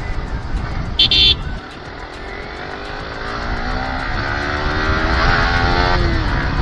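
Riding a sports motorcycle in traffic, with wind rumbling on the helmet mic. A horn beeps briefly about a second in, then the engine note rises steadily as the bike accelerates and breaks off near the end.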